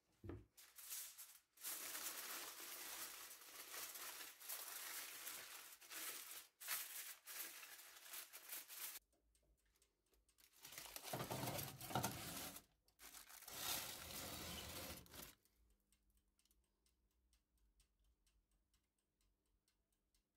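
Aluminium foil crinkling and rustling as a foil-covered baking dish is handled, in two long stretches with a short pause between. Near the end the crinkling stops and only a faint low hum remains.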